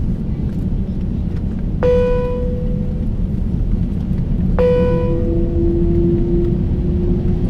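Two bell-like cabin chimes about three seconds apart, the second followed by a lower steady tone, over the steady rumble inside an Airbus A350-900 cabin on the ground. The chimes come just before a cabin announcement.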